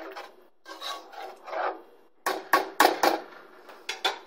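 A spoon stirring thick meat sauce in a pot, with soft scraping and squelching for the first couple of seconds. Then come several sharp knocks in quick succession, the loudest sounds, and two more just before the end.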